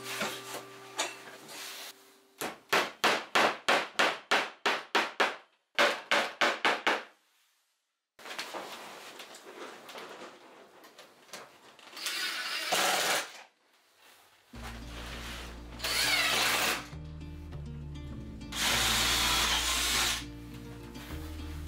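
Cordless drill running in several short bursts into a wooden board, after a run of quick rhythmic strokes at about three a second. Background music with low notes comes in about two thirds of the way through.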